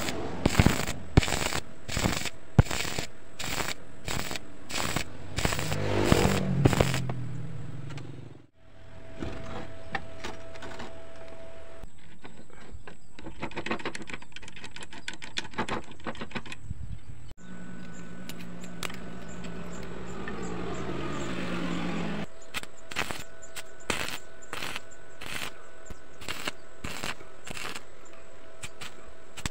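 Electric arc welding of steel: crackling with sharp pops about twice a second. In the middle, a steady run of fine clicking comes in as a motorcycle roller chain is turned over its sprockets by hand. The welding crackle and pops then return near the end.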